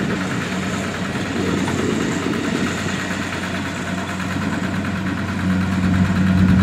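Two-wheel walking tractor's single-cylinder diesel engine running steadily as it hauls a trailer of rice sacks across a paddy field, getting louder near the end.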